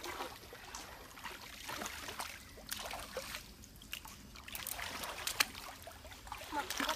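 Shallow stream water sloshing and trickling around wading feet, with a few small sharp clicks and knocks, the sharpest a little past five seconds in.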